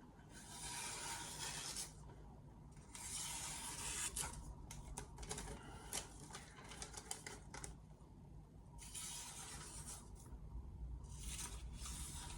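Mercer 8-inch granton-edge knife drawn in long scraping strokes across a sharpening surface, about six strokes of a second or so each with short pauses between.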